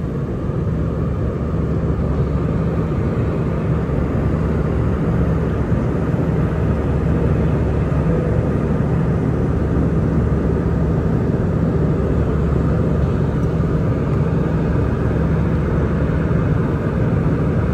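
Airliner cabin noise in flight: the steady rumble of the jet engines and airflow heard from inside the passenger cabin.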